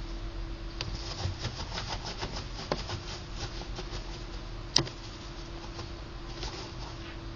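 Gerbil scratching and nibbling at close range: a steady run of quick, light clicks and rasps, with one sharper click about five seconds in.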